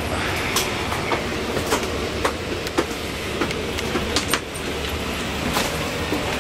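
Steady low rumble inside a C3 bi-level passenger car standing at a station, broken by irregular knocks and clicks from passengers' footsteps and luggage on the stairs.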